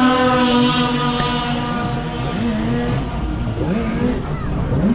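Racing snowmobiles at full throttle down a drag strip, a high, steady engine note that trails off about two seconds in as the sleds run away down the track.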